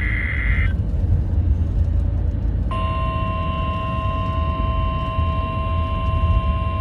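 Emergency Alert System test tones on a NOAA Weather Radio broadcast: the end of a warbling digital SAME header burst, about two seconds of static, then a steady alert tone about 2.5 seconds in. All of it sits over a loud low hum.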